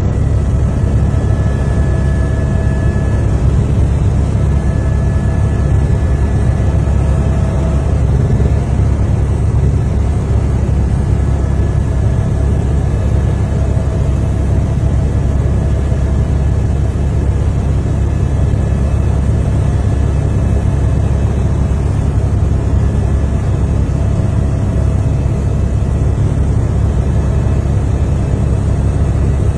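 Aircraft engine running steadily in flight, a constant low drone with faint higher tones that come and go.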